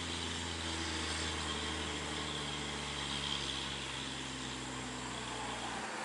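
A vehicle engine running steadily, its pitch slowly dropping, with the low engine hum cutting off near the end.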